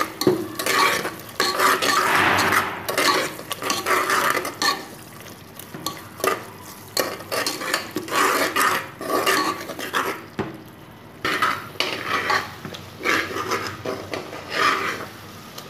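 Metal spoon stirring okra and tomato masala in a metal pot, with repeated irregular scraping strokes and clinks against the pot, pausing briefly about two-thirds of the way through.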